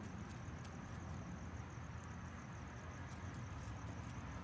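Crickets chirping in a steady high trill, with faint scattered ticks.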